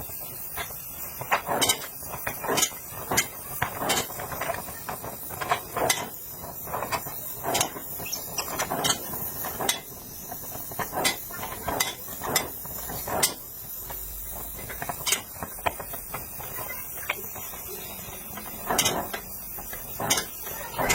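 Irregular sharp mechanical clicks and knocks, roughly one to three a second, over a steady faint hiss.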